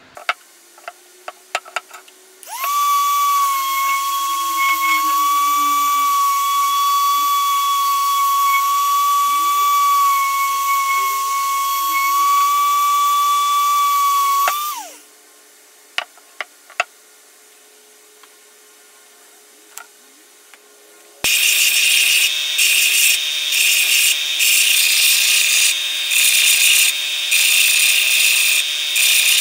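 A few sharp clicks, then an electric detail sander running steadily with a high whine for about twelve seconds as it sands the steel head of a sledge hammer, stopping abruptly. After more clicks, a belt sander starts about three quarters of the way in and grinds the rusty steel hammer head, the sound surging and dipping as the head is pressed to the belt.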